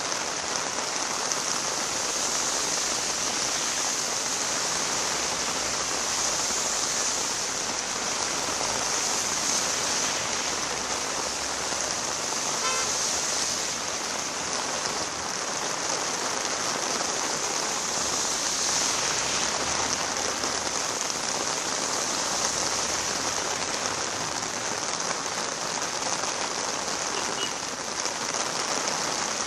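Steady rain falling on a wet road and roadside trees: an even, unbroken hiss.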